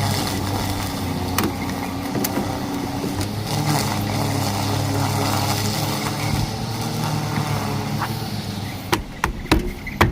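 A car engine idling with a steady low hum. A few sharp knocks come near the end.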